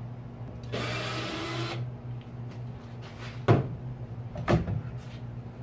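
Cordless drill running for about a second, then two knocks a second apart, over a steady low hum.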